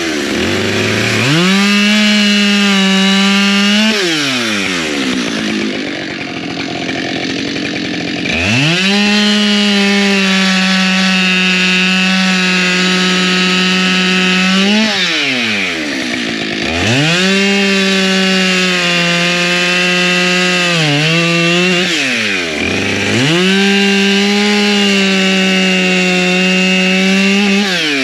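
Husqvarna two-stroke chainsaw bucking firewood: the engine revs up to full throttle and holds for a few seconds per cut, then drops back toward idle between cuts, four cuts in all. About twenty seconds in, it briefly bogs under load mid-cut.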